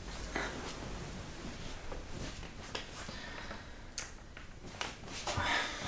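Quiet rustling of bedding as a man sits up in bed, a sharp click about four seconds in as the bedside lamp is switched on, and a heavy breath near the end.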